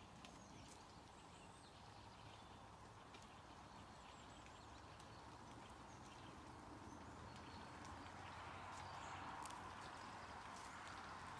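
Near silence: faint steady outdoor background hiss, with a few soft scattered clicks from a red deer stag grazing close by.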